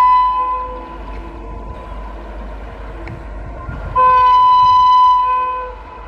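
WAP-7 electric locomotive horn on an approaching train: a blast already sounding fades out in the first second, then a second blast starts sharply about four seconds in and lasts over a second. The train's running rumble carries on between the blasts.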